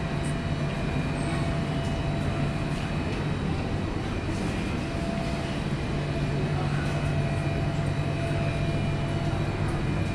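Steady machine hum of supermarket refrigeration and ventilation around the refrigerated fish counters: a low drone with a thin, steady higher tone over it.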